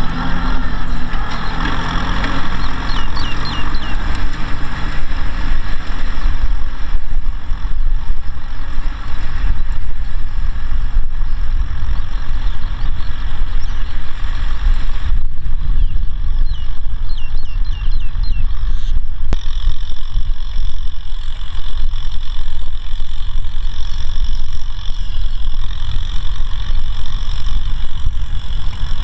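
Kubota M6040SU tractor's diesel engine running steadily under load as it pulls a disc plough through dry soil.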